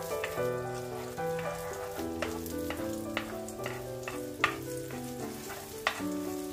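Beaten egg sizzling in a hot nonstick frying pan as it is stirred and scrambled, with scattered light clicks of the utensil against the pan. Background music with a gentle melody plays over it.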